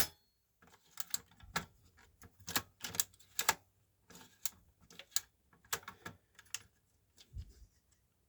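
Vintage Starlite slide projector's slide-loading mechanism being worked by hand: a sharp click, then irregular clicks and light clatter as slides are pushed and pulled through it.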